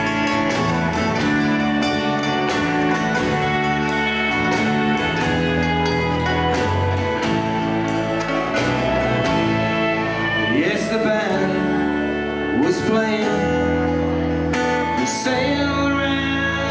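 Live folk band playing, with acoustic guitar, fiddle, mandolin and bass guitar together and a voice singing over them.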